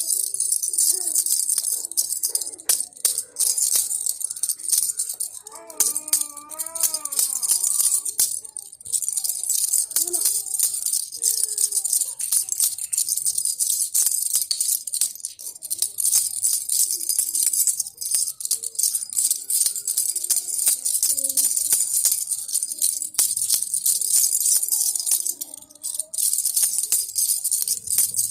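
Baby rattle being shaken steadily, a fast, bright rattling of small beads that goes on almost without a break, with a few short pauses.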